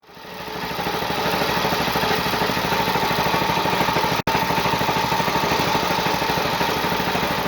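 Shop-built belt-and-pulley machine driven by an electric motor, running steadily with a fast, even pulse. It fades in over the first second and drops out for an instant about four seconds in.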